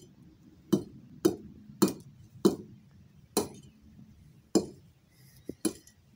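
A series of sharp, short clicks, seven strong ones with a fainter one just before the last, coming every half second to a second.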